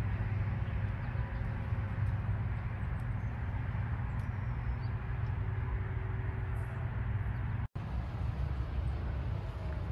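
Steady outdoor background rumble, heaviest in the low range, with a brief break in the sound a little before eight seconds in.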